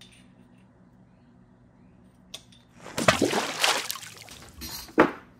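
Metal parts being handled on a workbench: a faint hum, then a scraping, rustling stretch about three seconds in and a sharp clack near the end as a part is set down.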